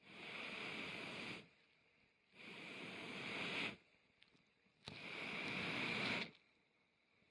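Three long puffs of air blown through a telescopic fire-blowing pipe into a campfire, each lasting about a second and a half with a short pause between breaths. The air is fanning the fire under a pot.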